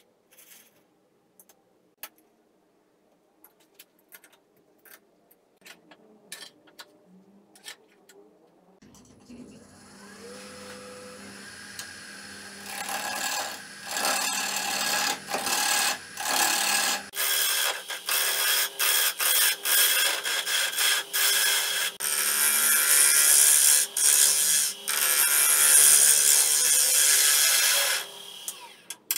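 Scattered clicks and knocks of a scroll chuck being fitted and tightened on a wood lathe, then the lathe motor starts humming and a 1/2-inch bowl gouge cuts into the spinning Itín wood bowl, hollowing it: a loud scraping hiss with many short breaks, stopping shortly before the end.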